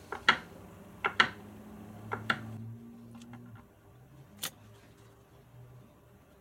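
Small knife knocking on a wooden chopping board as cheese is sliced thin: sharp knocks, mostly in pairs, through the first two and a half seconds, then a single knock about four and a half seconds in.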